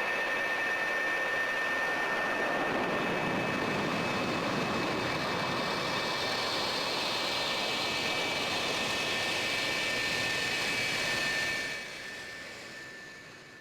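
F-4 Phantom II's twin J79 turbojets running, a steady jet rush with a high whine over it. The sound drops off sharply near the end and fades away.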